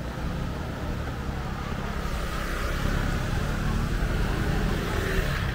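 A motor vehicle approaching along the street, getting louder and closest near the end, over a steady low traffic rumble.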